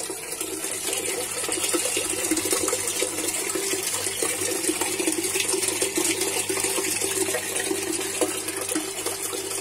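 Continuous rush of water splashing and churning in a koi pond's filter pump chamber around a running submersible pump, with a steady low hum underneath.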